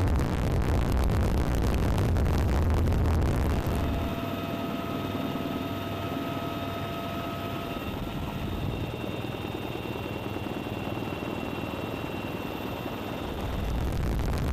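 Military helicopter in flight, rotor and turbine noise. A loud low rumble gives way about four seconds in to a quieter, steady rush with a high turbine whine, and the low rumble comes back near the end.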